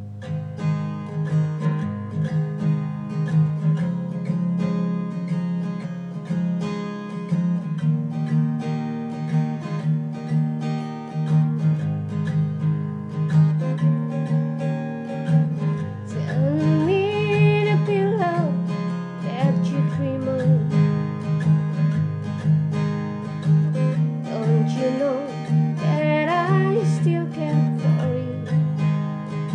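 Acoustic guitar playing a country tune with steady strumming, with a few gliding melody lines over it around the middle and again near the end.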